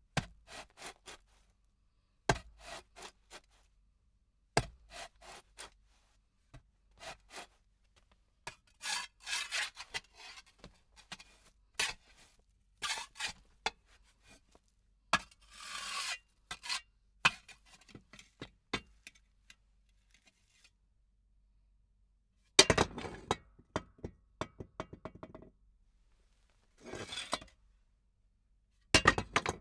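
Metal blade of a phawda (Indian digging hoe) striking and scraping gritty earth: a run of sharp hits, each trailing into rattling scrapes and small clinks. The strokes come singly a couple of seconds apart at first, then bunch into busier scraping, with the hardest hits near the end.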